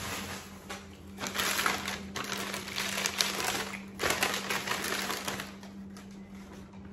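Brown kraft paper bag crinkling and rustling in several bursts as a candle is pulled out of it and unwrapped.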